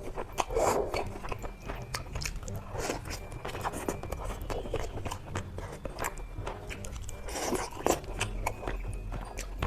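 Close-miked eating sounds: crunchy bites and chewing, with many sharp crackles throughout, over quiet background music.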